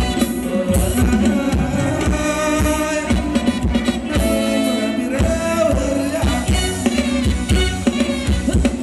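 Live Thai ramwong band music: a singer's melody over a steady drum beat of about two thumps a second.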